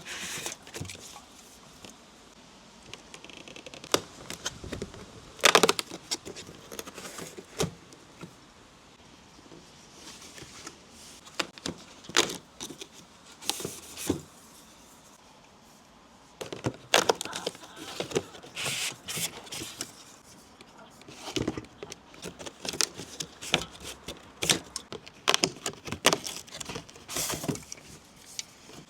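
Irregular clicks, taps and short rustles of packaging and small items being handled and opened, with brief pauses between bursts and busier handling in the second half.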